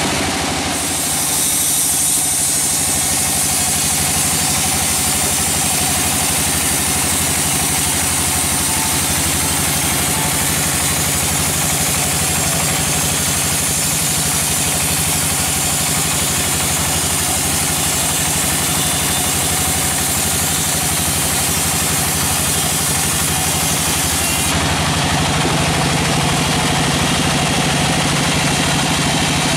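Large band sawmill running and its blade sawing through a log: a steady machine drone under a dense high hiss of cutting. Near the end the high hiss eases and a lower hum comes up.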